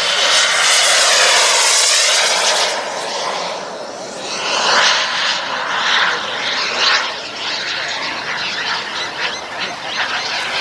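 King Tech turbine of a Carf Viper Jet RC model jet (18 kg thrust) whining and rushing on a close, fast pass for the first three seconds. The sound then carries on farther off, swelling and fading as the jet manoeuvres.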